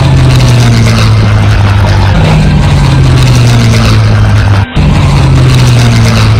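P-51C Mustang's Packard Merlin V-12 engine running at a steady, unchanging pitch, very loud, with a brief drop-out about four and a half seconds in.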